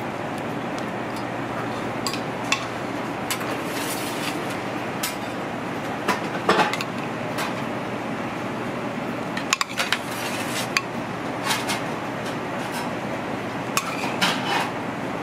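Metal utensils, a spatula and a spoon, clinking and scraping against a ceramic plate in irregular clicks over a steady background hiss.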